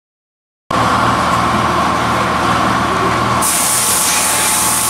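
A brief dead silence, then loud, steady workshop machinery noise cuts in: an even whir with a steady whine and a low hum. A brighter hiss joins about three and a half seconds in.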